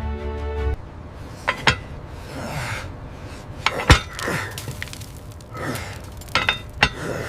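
Background music cuts off within the first second. Then come a series of sharp clinks and knocks, one heavy knock just before the middle, mixed with short bursts of hiss.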